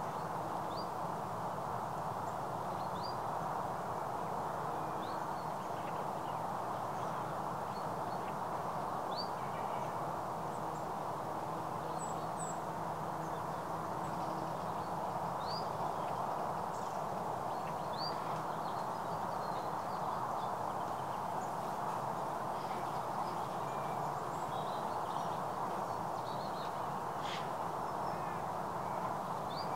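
Shallow stream running steadily, a constant rushing, with birds giving short, high chirps here and there.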